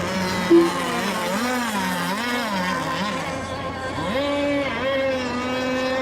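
Radio-controlled racing boat engines whining on the water, several at once, their pitch swinging up and down as the boats throttle through the turns, with a brief louder tone about half a second in.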